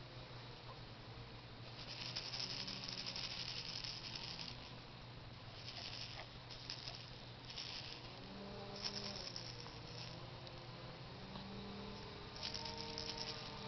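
A plastic baby rattle with small beads inside, shaken in bursts: a long shake about two seconds in, several short shakes between about six and ten seconds, and another near the end.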